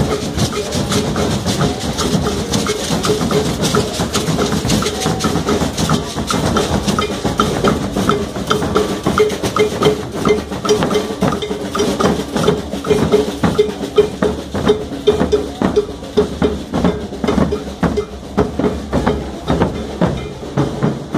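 A street carnival drum group, hand drums and larger drums played together, beating a fast, steady rhythm, with a ringing drum note pulsing on the beat and crowd noise underneath. The strokes grow sharper and more accented from about a third of the way in.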